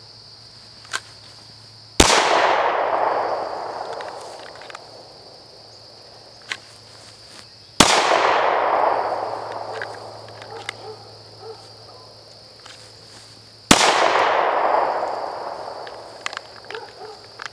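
Three single handgun shots about six seconds apart, each followed by a long echo that fades away over two to three seconds. Crickets chirp steadily throughout, with a few small clicks between the shots.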